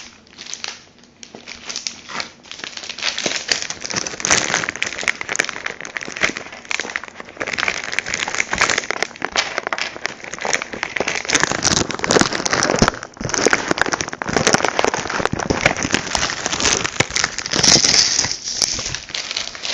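Packaging wrapping crinkling and crackling continuously as it is handled and pulled off a new car CD receiver during unboxing.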